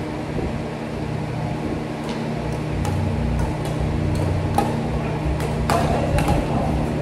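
An engine running at a steady idle, with scattered clicks and light knocks from about two seconds in.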